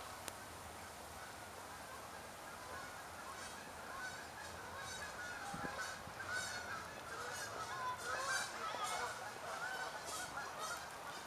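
A flock of waterbirds calling: many short, overlapping calls that grow busier from about three seconds in.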